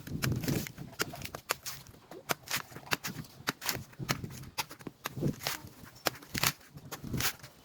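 A knife scraping and striking a coconut in a string of short, sharp strokes at irregular intervals, with a few duller thumps between them.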